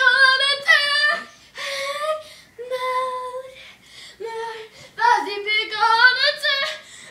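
A child singing in short, high-pitched phrases with held notes, louder at the start and again near the end, softer in the middle.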